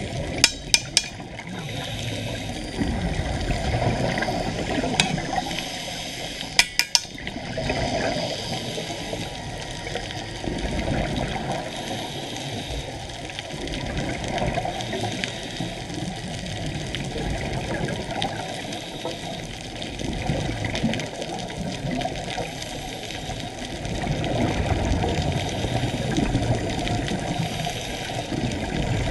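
Steady rush of water heard underwater through a scuba diver's camera, swelling and easing over several seconds, with a few sharp clicks about half a second in and again about seven seconds in.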